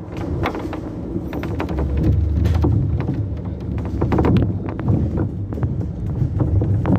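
City bus engine and drivetrain heard from inside the cabin while driving, a low drone that grows louder about two seconds in as the bus picks up speed, with frequent rattles and clicks from the bus interior.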